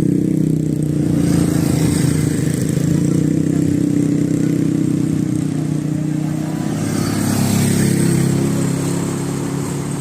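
A large bus's engine running steadily at close range, swelling slightly about seven seconds in.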